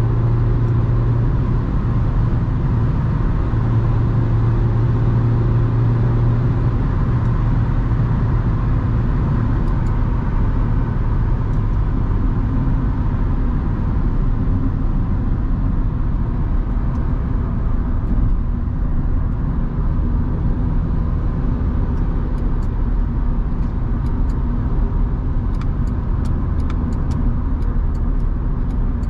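Inside the cabin of a 1997 Honda Civic with a 1.4-litre four-cylinder petrol engine, cruising at motorway speed: a steady engine hum over tyre and wind noise. The engine's low hum is strongest in the first several seconds, then sits lower under the road noise.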